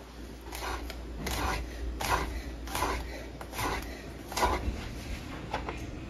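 Kitchen knife slicing a garlic clove on a bamboo cutting board: a steady run of short cuts, each ending in a tap of the blade on the wood, about one every three-quarters of a second.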